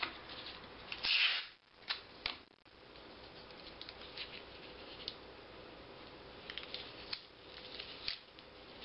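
Paper rustling and crinkling as a folded, pre-taped paper strip is pressed down along a paper wing's leading edge, with a short louder crinkle about a second in and a few light clicks later on.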